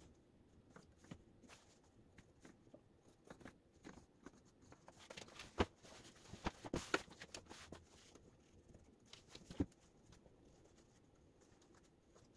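Quiet scattered taps and knocks of a plastic ruler and pencil against a wooden tabletop as guide marks are drawn on a fabric jacket and the jacket is shifted, with a flurry of louder knocks around the middle and one more sharp knock a few seconds later.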